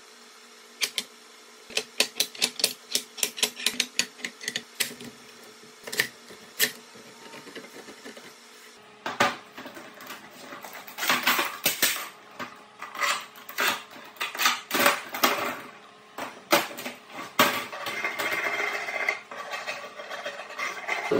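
Sharp clicks and knocks of hardwood strips and steel bar clamps being set and tightened on a walnut and purpleheart glue-up, then a steadier rasping near the end as a scraper takes dried glue off the board.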